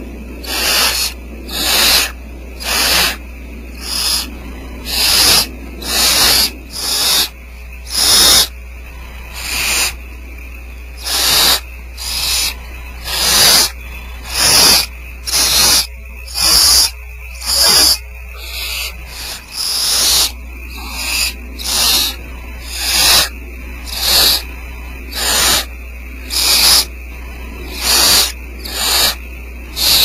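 Barn owl nestlings giving their rasping, hissing begging calls over and over, about one to two hisses a second, under a steady low electrical hum.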